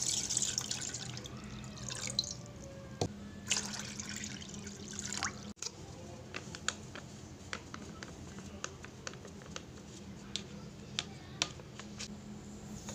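Water poured from a jug into an aluminium saucepan, splashing and running for the first few seconds. After an abrupt cut, a scatter of light ticks and clicks as agar-agar powder and other dry ingredients are tipped into the pan.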